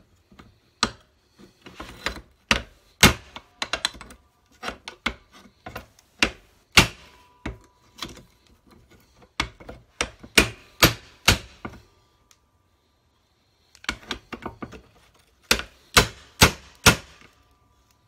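Repeated hammer blows on a steel car door hinge held in a bench vise, struck to drive out its worn hinge pin, which does not budge. The blows come in uneven bursts with a pause of about two seconds two-thirds of the way through, and some strikes leave a faint metallic ring.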